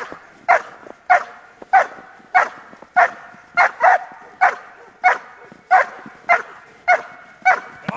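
Giant schnauzer barking steadily in defence bitework, about three barks every two seconds in an even rhythm.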